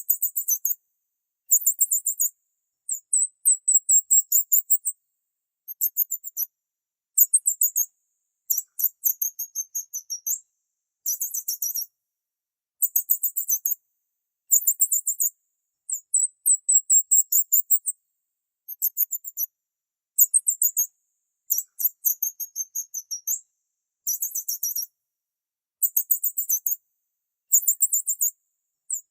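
Small bird chirping in very high-pitched runs of rapid notes, each run about half a second to a second and a half long, repeated every second or two with silent gaps between.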